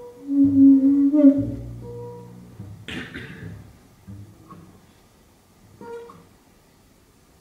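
Double bass and two guitars playing free-improvised jazz: long held notes over deep bass notes, then a single sharp struck accent about three seconds in, after which the playing thins to a few faint notes and fades to quiet.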